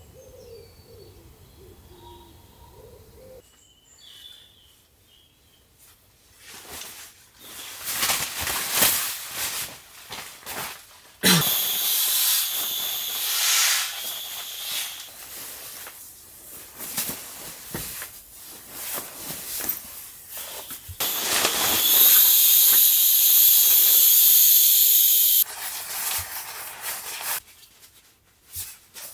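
Air hissing out of an inflatable sleeping pad as it is rolled up, in long rushes that start and stop abruptly. The longest and loudest runs from about 22 to 25 seconds in, with rustling between the rushes. Faint bird calls come in the first few seconds.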